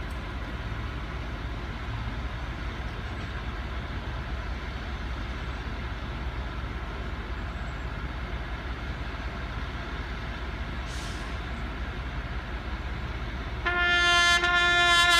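Steady outdoor street background with a low rumble. Near the end a solo trumpet begins to play, starting on a long held note.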